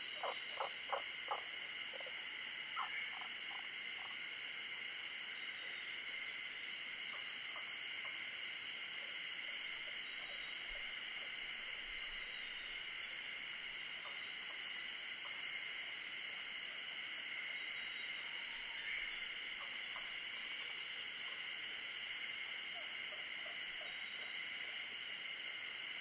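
A dense, steady chorus of calling animals in two high pitch bands, unbroken throughout. A quick run of short lower notes sounds in the first second and a half, a few more come about three seconds in, and faint high chirps sound now and then.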